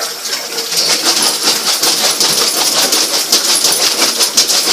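Water running in a bathtub and down the drain, a steady hiss with quick small clicks and splashes as a dog noses and paws at the drain.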